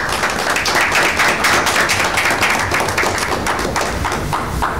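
A small audience clapping, dense at first and tapering off near the end.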